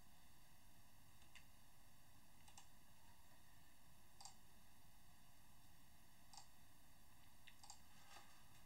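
Faint computer mouse clicks, about eight scattered over a few seconds, against near-silent room tone.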